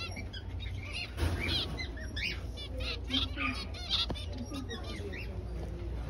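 A flock of small finches, zebra finches among them, chattering. Many short nasal beeps and chirps overlap throughout, over a steady low hum.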